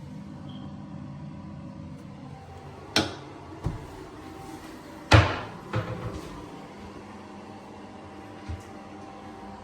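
A few knocks and clunks, the loudest a bang about five seconds in with a short ringing tail, over a steady low hum.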